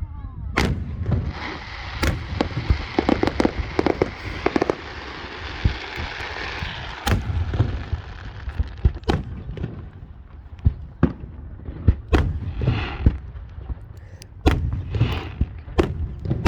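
Aerial fireworks bursting: a rapid run of sharp bangs and booms, with a long hiss under the bangs from about one to seven seconds in.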